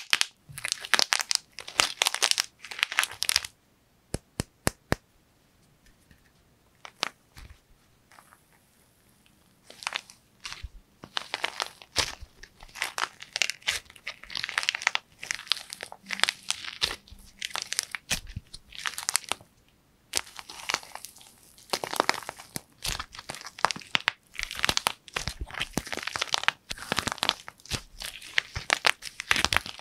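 Dried plaster clay shell cracking and crumbling as fingers squeeze and tear it apart, a crisp crackling crunch in rapid runs. A few seconds in there is a quieter spell of only a few scattered clicks, then the dense crunching picks up again.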